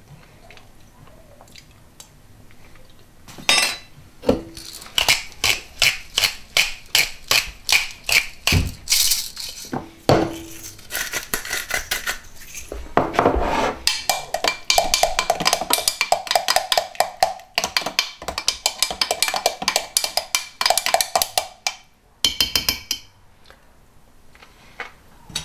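Soup being seasoned by hand: a long run of regular clicks and clinks, about three to four a second, from a pepper grinder being twisted and a spoon against the glass blender jar, with a ringing tone in the second half; the clicks stop a few seconds before the end.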